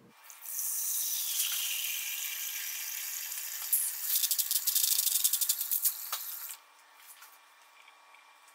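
Tap water pouring into a cooking pot at the sink, a steady splashing hiss that turns choppier and more spattery about four seconds in, then stops suddenly about six and a half seconds in.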